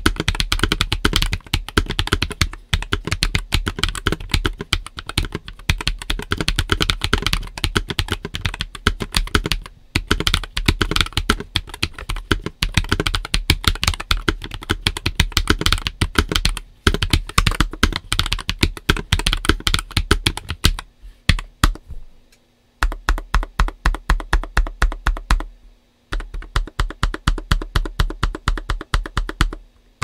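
Typing on a NuPhy Air96 low-profile mechanical keyboard with Gateron x NuPhy Daisy switches and nSA PBT keycaps: a fast, dense run of keystroke clacks with a few brief pauses. In the last third the keypresses slow into more spaced, regular strokes.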